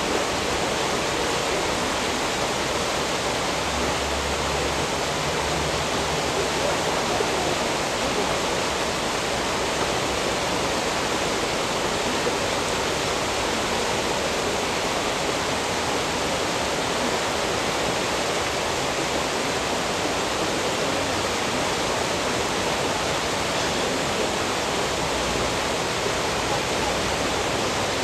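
Steady rushing of turbulent, foaming water churning a mass of floating plastic bottles and balls, an even roar with no distinct knocks or splashes standing out.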